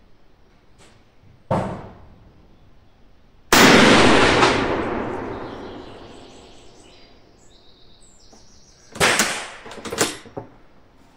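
A Mauser bolt-action rifle in .300 Savage fires one shot about three and a half seconds in, the report echoing and dying away over about three seconds under the range roof. A shorter bang comes about a second and a half in, and near the end there is a quick run of metallic clicks and clacks as the bolt is worked.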